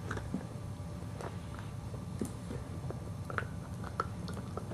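A Maltese dog gnawing and chewing on a bone, with irregular small clicks and crunches of teeth on the bone.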